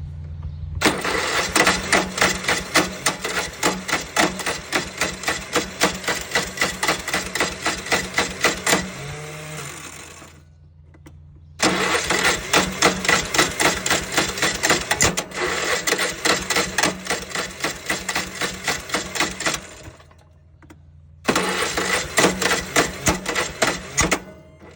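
Huskee LT 4200 riding mower's starter cranking the engine three times: about eight seconds, again about eight seconds, then a short three-second try. Each try is a fast, even run of loud knocking clacks that stops abruptly, without the engine catching. This is the 'kadak' knock the owner cannot explain on a mower that won't start.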